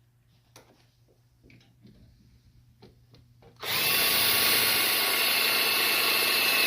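A few faint handling clicks, then a power drill with an 11/16-inch bit starts abruptly about two-thirds of the way through and runs steadily at speed with a high whine, boring the hole for the brake lock.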